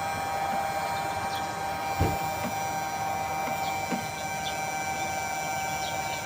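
Small electric exhaust fan running steadily after repair, its motor giving a constant hum with a steady tone over it, now working again. A faint thump about two seconds in.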